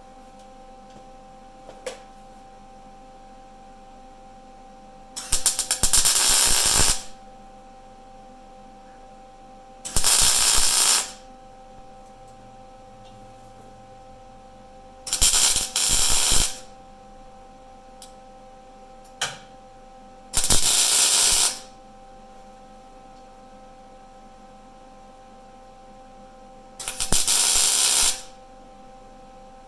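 Wire-feed welder laying five short tack welds, each about a second of crackling arc, tacking a steel patch panel in place. A steady hum runs between the tacks.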